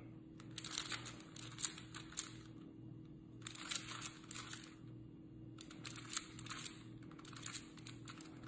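Rubik's cubes clicking and clattering as their layers are turned rapidly. The turning comes in four bursts of about a second each, with short pauses between them.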